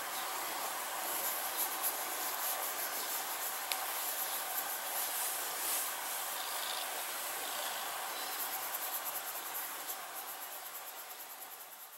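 Steady hissing noise that slowly fades out near the end.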